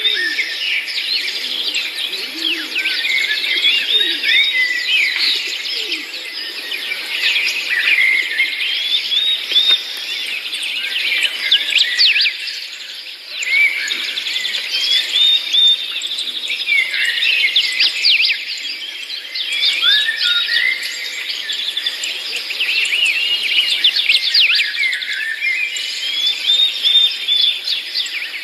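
A dense chorus of many small birds chirping and twittering over one another without pause, briefly thinning for a moment about halfway through.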